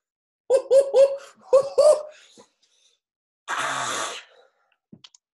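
A man laughing in about five quick, loud bursts, followed a second or so later by a short breathy rush of noise.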